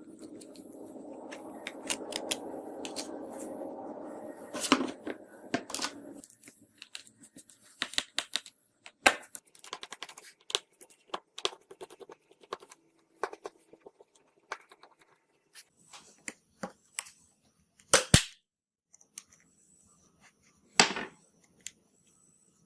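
Irregular sharp clicks and taps of small hand tools working on a smartphone's plastic and glass parts. A steady hiss runs for the first six seconds and then stops.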